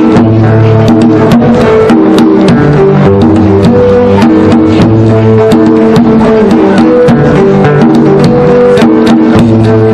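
Live music for an Amazigh song: a hand drum beats steadily under a plucked banjo and a melody of held notes.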